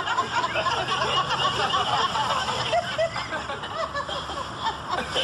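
Sitcom laugh track: many people in a studio audience laughing together, steadily throughout.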